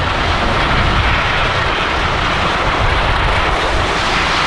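Steady rushing wind buffeting a GoPro's microphone, with a rumble underneath, and skis hissing over snow during a downhill run.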